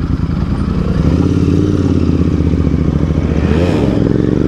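Motorcycle engine running under way, its exhaust note growing louder over the first second and then holding steady.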